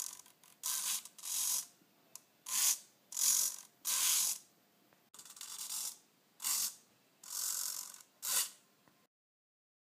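Small hobby servo whirring in short bursts, about ten in all, as it swings the boat's FPV camera back and forth.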